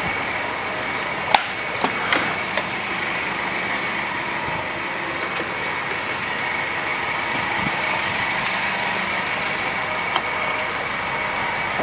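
A steady mechanical hum runs throughout. Over it come a few light knocks as a hand handles the truck's painted wooden cargo-bed side boards: two or three within the first few seconds and one near the end.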